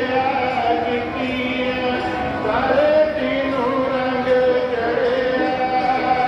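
Devotional singing, a voice holding long notes that slide from pitch to pitch in a chanting melody.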